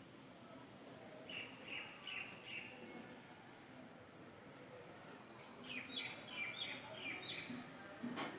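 A small bird chirping in two quick runs of short, high chirps, the first about a second in and the second past the middle, over faint background noise; a sharp click sounds near the end.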